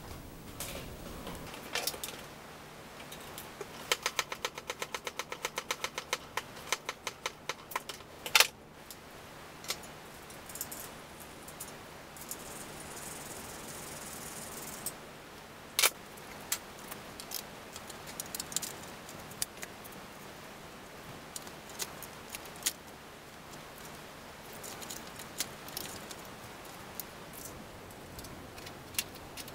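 Small metal clicks and clinks from hand work on a bicycle rear wheel's hub and sprocket. A run of quick, even ticking from about four to eight seconds in ends in one sharp click, followed by scattered light clicks.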